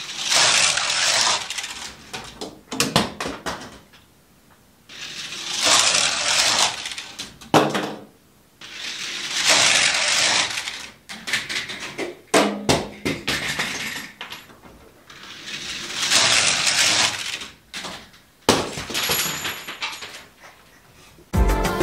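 LEGO test cars rolling at speed over a loop track built from LEGO bricks, a rattling plastic clatter that sweeps past in about five waves a few seconds apart, with scattered clicks and knocks between.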